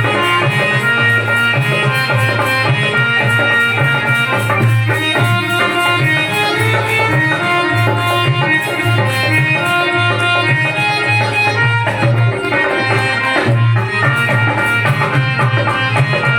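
Hindi devotional bhajan music: a steady, even drum beat under a melodic instrumental line.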